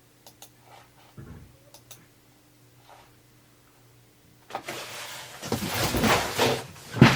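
A few light clicks and a dull knock over a faint steady hum, then, about four and a half seconds in, loud rustling and knocking from things being handled, with one sharp thump near the end.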